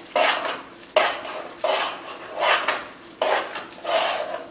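A spoon stirring risotto in a pan, scraping the pan in repeated strokes about once every three-quarters of a second. This is the mantecatura, with butter and Parmigiano being worked into the rice.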